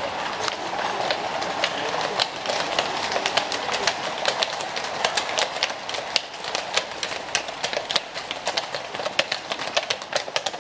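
Horses' iron-shod hooves clip-clopping on paving stones as a horse-drawn carriage passes, over the steady rolling rumble of its wheels. The hoof strikes come thicker and sharper in the second half.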